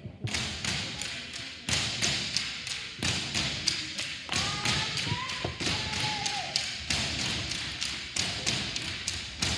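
Tinikling poles tapped on a wooden gym floor and clapped together in a steady, even beat of sharp knocks, about three a second.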